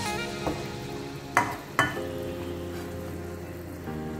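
Background music holding steady chords over the faint sizzle of chicken frying in a pan. Two sharp knocks come about a second and a half in.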